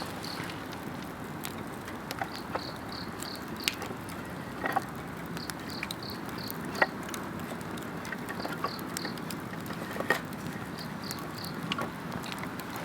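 Wood campfire crackling, with sharp pops now and then over a steady low hiss of the flames. Insects chirp through it in short high runs of about five pulses, repeating every couple of seconds.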